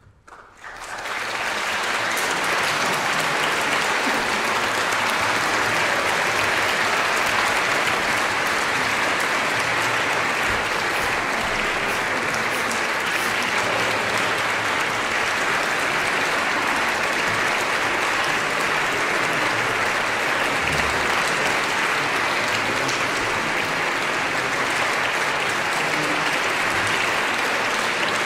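Audience applauding, breaking out of silence and swelling within the first couple of seconds, then holding steady.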